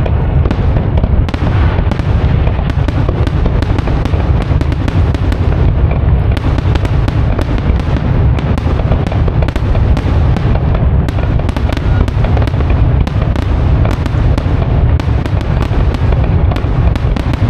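Aerial firework shells bursting in a dense, unbroken barrage: deep booms running into one another, with many quick sharp cracks and crackles over the top.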